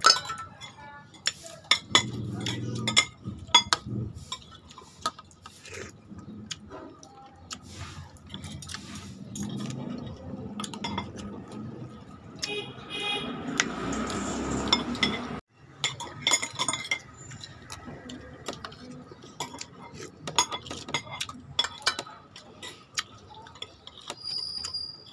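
Metal spoons and forks clinking and scraping against plates during a meal, in many quick, irregular clicks.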